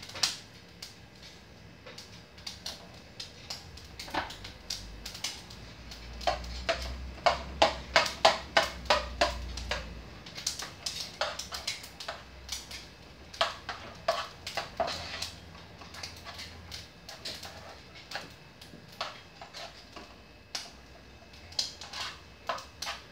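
A spoon scraping and knocking against a cooking pot while corn couscous is stirred into the pan drippings to make farofa. The strokes come in uneven runs and are fastest and loudest, about two or three a second, between roughly six and ten seconds in.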